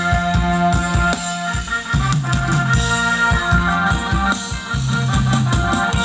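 Instrumental passage of upbeat Thai ramwong dance music from a live band: a held melody over a steady drum beat.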